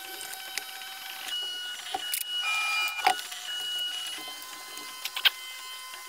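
Sharp clicks and knocks from hands handling a plastic monitor case and packing tape, over a steady high whine; the loudest knocks fall about three seconds in and again about five seconds in.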